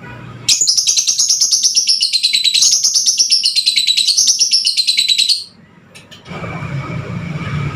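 Fighter-type lovebird singing one long, rapid chattering trill whose pitch sweeps up and down in slow waves for about five seconds, then stops abruptly. This is the kind of song kept as a lure call to set other lovebirds singing. A steady low hum follows near the end.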